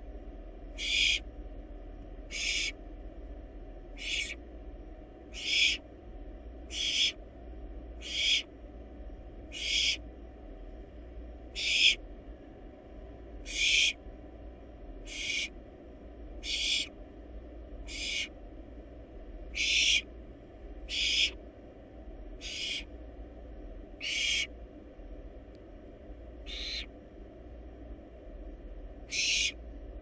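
Barn owl nestling giving short, hissing begging calls (the barn owl's 'snoring' call), repeated about once every second and a half.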